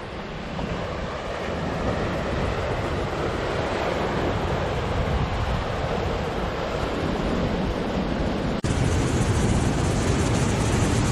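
Ocean surf breaking on rocks, a steady rushing noise mixed with wind on the microphone. About two-thirds of the way through it cuts abruptly to nearer, louder surf.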